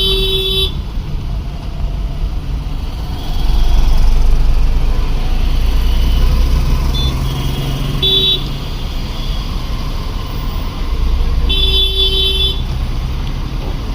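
Riding through city road traffic: a steady low rumble of road and wind noise, with a vehicle horn honking three times, once at the start, briefly about eight seconds in, and for about a second near twelve seconds in.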